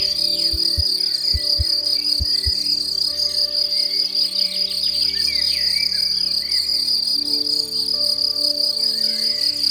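Steady high-pitched insect chorus, crickets trilling without a break, with short chirps scattered over it. Soft background music runs underneath, with a few low beats in the first couple of seconds.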